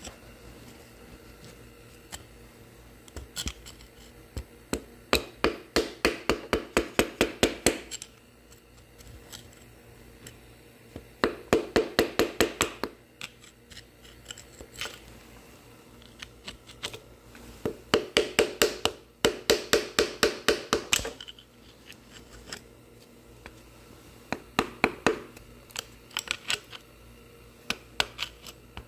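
Flat scraper blade scraping caked grime off the cast-iron back of a Chevy 283 engine block beside a bolt head, in bursts of quick back-and-forth strokes, about four or five a second, with pauses between bursts.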